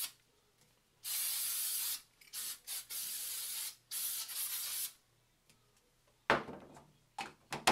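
Hair sheen spray being sprayed onto a wig in several hissing bursts, three of them about a second long with a couple of shorter puffs between, to give the curls shine. A few short knocks or handling sounds follow near the end.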